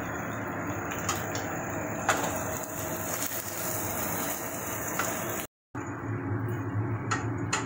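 Spoon stirring spiced pasta in a pan on a gas stove: a steady hiss with a few sharp clicks of the spoon against the pan. The sound cuts out for a moment about five and a half seconds in.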